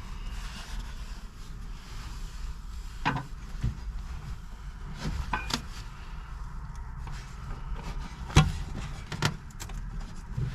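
A metal stove door being handled during refitting: a few light knocks and clicks, the sharpest about eight seconds in, over a steady low rumble.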